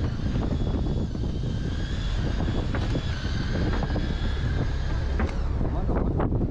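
Fishing boat's engine running steadily, with wind buffeting the microphone and a few light knocks near the end.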